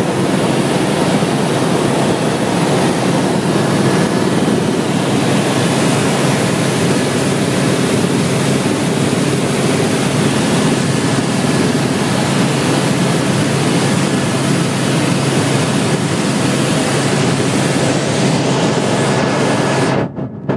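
Helicopter in flight heard from inside the cabin: a loud, steady rushing drone of rotor, engine and airflow with a low hum under it, cutting out briefly near the end.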